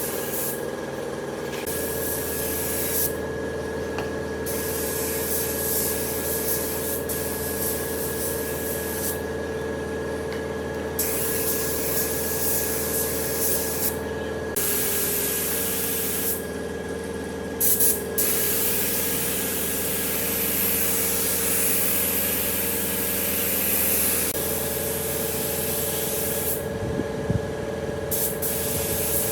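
A power tool working the wood: a steady motor hum under a hissing, rubbing noise that breaks off briefly about five times and comes back.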